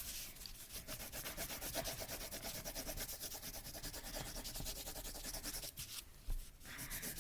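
Wax crayon scribbling hard on printer paper in rapid back-and-forth strokes, a steady scratchy rubbing with a short break about six seconds in.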